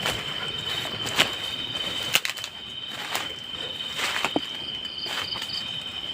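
Insects trilling steadily at one high pitch, with scattered sharp clicks and snaps about once a second.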